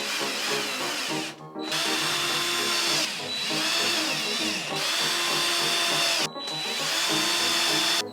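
Power drill whining in long bursts. It stops briefly about a second and a half in and again just after six seconds, then starts again each time.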